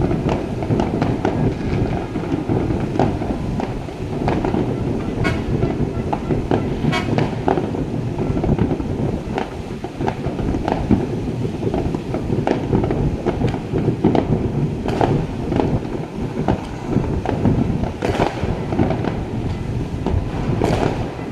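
Fireworks display going off continuously: a dense stream of bangs and crackling pops over a steady rumble, with a few sharper cracks standing out.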